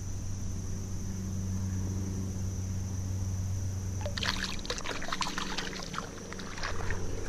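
Steady high chirring of crickets, then about four seconds in, a hand splashing in river water as a small pike is released, with dripping and irregular knocks of handling for about two seconds.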